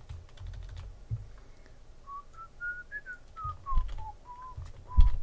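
A person whistling a short tune of a dozen or so short notes that climb and then fall back. Before the whistling, a few seconds of computer keyboard and mouse clicks. A dull knock comes near the end.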